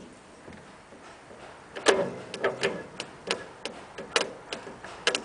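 A run of sharp mechanical clicks from the 1986 MTD lawn tractor, about two or three a second and irregular, starting about two seconds in, with no engine running. Some clicks ring briefly.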